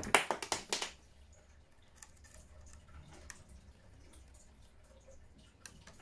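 A quick run of sharp clicks and light knocks in the first second, then a few faint clicks: a metal three-axle fender being handled and set in place on a 1/14-scale model truck chassis.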